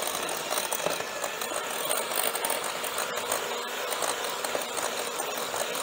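Electric hand mixer running steadily, its beaters whipping butter and egg in a glass bowl.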